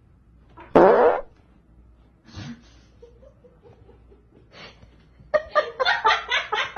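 A short, loud, rough burst of sound about a second in, then a person laughing in quick bursts near the end.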